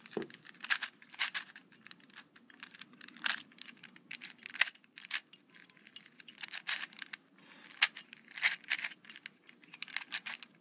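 3D-printed plastic Trapezoid Edge twisty-puzzle cube being turned quickly by hand, its layers giving a run of irregular clicks and clacks. This is the finished, worked-in cube, turning the way it should once the work is done.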